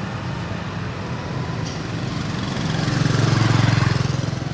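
A vehicle engine running, growing louder about three seconds in and easing off near the end.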